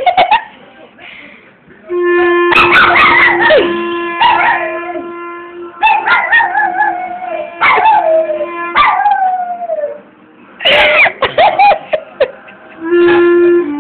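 Miniature schnauzer howling and yipping along to a clarinet. The clarinet holds one long note while the dog's howls slide down in pitch, several in a row. The playing then breaks off for a quick flurry of howls and yips, and resumes with a few short notes near the end.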